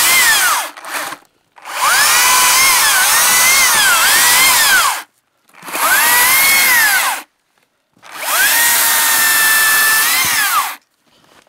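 Makita 36-volt cordless chainsaw cut in short runs: the motor and chain whine rises at each trigger pull, dips in pitch as the chain bites into the wood and winds down on release. One run ends about a second in, then three more follow.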